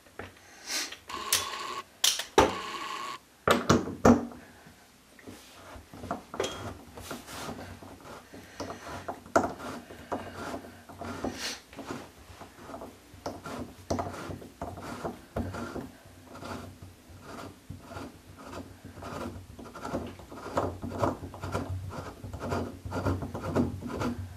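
Old metal bathtub drain being unscrewed from the tub with a drain removal tool turned by hand. A few loud metal clanks come about 2 to 4 seconds in, then a long run of short scraping clicks, about three a second, as the threads work loose.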